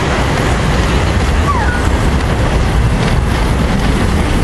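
Steady rushing noise, heaviest in the low end, with a couple of faint short chirps about a second and a half in.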